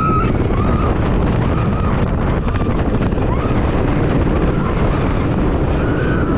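Wooden roller coaster ride heard from the front row: a loud, steady rush of wind on the microphone over the rumble of the train on the track. A few short, faint high-pitched sounds rise and fall over it.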